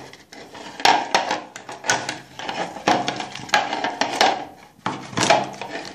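Butter being rubbed around the inside of a fluted metal bundt pan, the pan scraping and clattering in repeated uneven strokes, about one or two a second.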